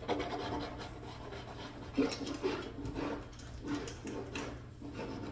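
Mouthwash swished and sloshed around inside closed mouths, a wet churning that comes in irregular pulses.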